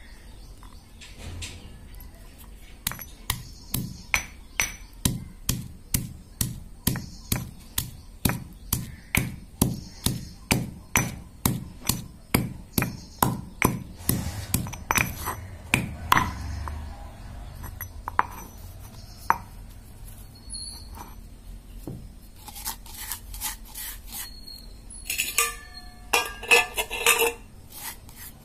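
Stone pestle pounding garlic cloves in a stone mortar: steady sharp strikes about twice a second for a dozen seconds, then a few scattered knocks and a quick cluster of sharp clinks near the end.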